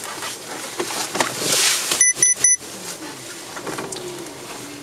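Three short, high electronic beeps in quick succession about two seconds in, after some rustling. A pigeon's low, wavering coo follows near the end.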